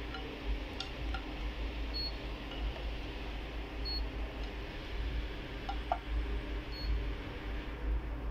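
A handheld CM-8828 coating thickness gauge giving a short, high beep with each reading, three or four times about two seconds apart, over a steady low hum and a few faint clicks.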